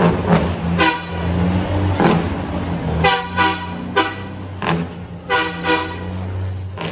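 Western Star truck horn tooted in about ten short blasts at uneven intervals over a steady low engine hum.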